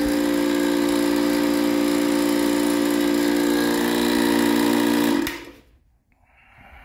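Portable high-pressure air compressor, used here as a pump to compress biogas into a propane tank, running with a loud steady hum, then switched off about five seconds in and falling quiet.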